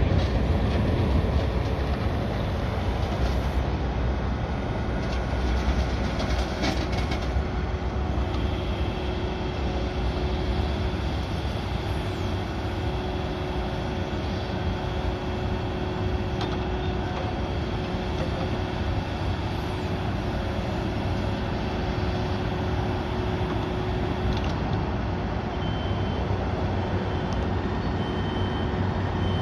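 Yanmar ViO55-6A mini excavator's diesel engine running steadily under load as the boom, arm and bucket are worked, with a steady whine over the engine. A high beep starts repeating about once a second near the end.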